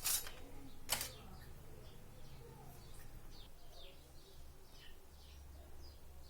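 Two sharp knocks in the first second, then small birds chirping over and over in short falling chirps.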